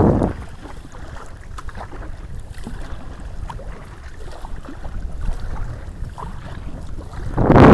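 Wind rumbling on the microphone with faint small water drips and splashes during a canoe outing; near the end a strong gust hits the microphone loudly.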